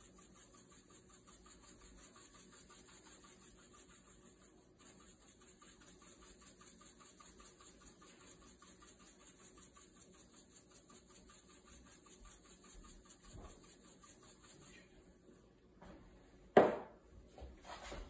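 Pepper mill grinding peppercorns: a rhythmic, gritty rasp of about four strokes a second. It stops near the end, followed by one loud knock and a couple of lighter taps.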